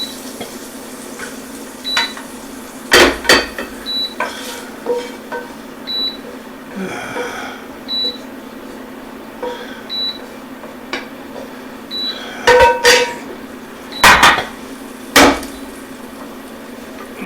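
A utensil knocking and scraping against a pan and a jar as browned sausage is moved: a couple of sharp knocks, then a cluster of clanks near the end. Under it a short high beep repeats every two seconds over a steady hum.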